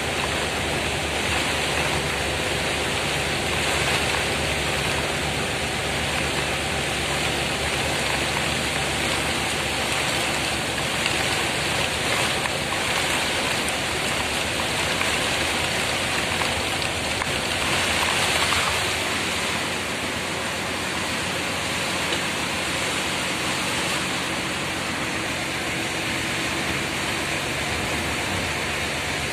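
Heavy downpour heard from inside a moving bus: a steady rush of rain and road spray, with a low engine hum underneath.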